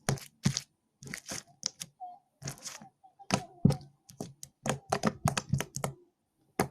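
Slime being squeezed and pressed, giving off irregular sharp sticky pops and crackles in quick clusters.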